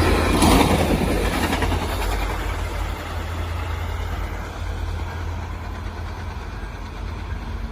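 Tri-Rail commuter train's diesel locomotive and cars rumbling, the sound fading steadily as the train moves away.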